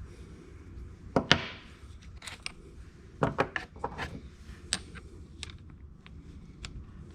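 Metal crimping dies being popped out of their blow-molded plastic case and handled: a string of sharp clicks and knocks, the loudest pair about a second in and a quick cluster around three to four seconds.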